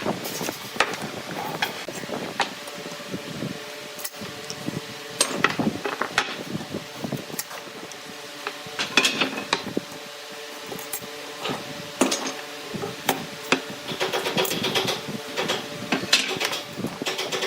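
Irregular knocks and taps of hand woodworking, tools striking and handling wood, with a faint steady hum underneath through much of it.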